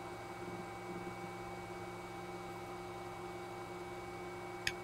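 Mosaic Palette+ filament splicer running: its cooling fan makes a steady hum with a few fixed tones while it feeds spliced filament out. A single sharp click near the end.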